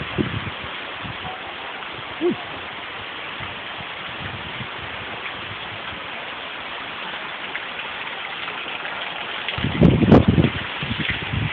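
Heavy rain falling steadily, a dense even hiss. Near the end a brief louder low burst cuts through it.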